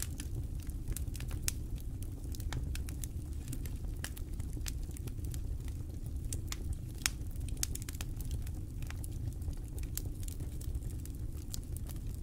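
Wood campfire crackling, with sharp irregular pops several times a second over a steady low rumble.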